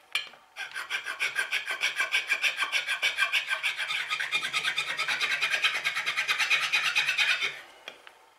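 Hand file rubbing on the wooden body of an old coffin smoother plane in quick, short, even strokes, fitting the seat for the plane's steel toe. It starts after a brief knock and stops near the end.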